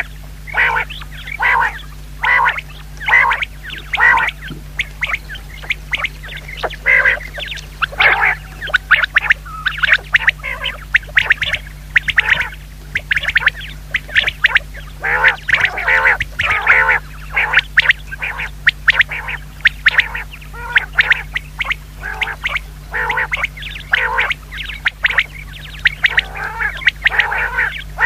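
Common quail calling: short, harsh calls repeated a few times a second in irregular runs.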